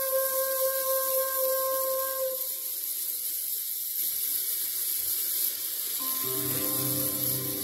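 Instrumental music. A held note fades out about two seconds in, leaving a few seconds of steady hiss. About six seconds in, a new passage begins: several sustained notes over a low note pulsing about twice a second.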